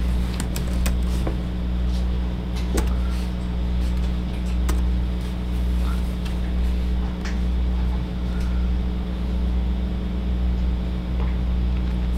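A steady low hum of room machinery, with a few light clicks in the first five seconds.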